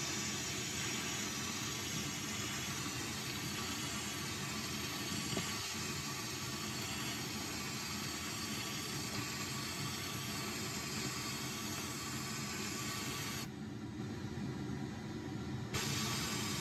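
Sandblasting gun blasting glass media at a metal part inside a plastic-tub blast cabinet, a steady hiss with a dust vacuum running. About three seconds before the end the blast stops for about two seconds, leaving only a lower steady noise, then starts again.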